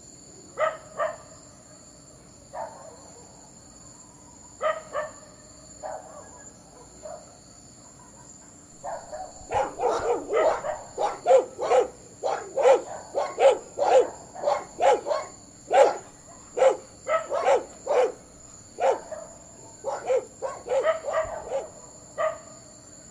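Street dogs barking at a lion to chase it off. A few scattered barks come first, then rapid, overlapping barking from several dogs from about halfway through.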